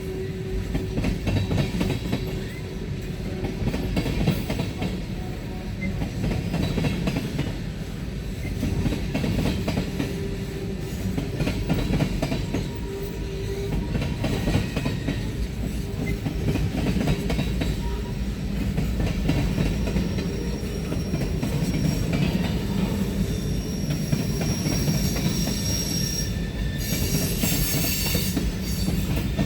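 Freight cars of a manifest train rolling past, a steady rumble with wheels clicking over the rail joints. In the last few seconds high-pitched wheel squeal comes in over the rumble.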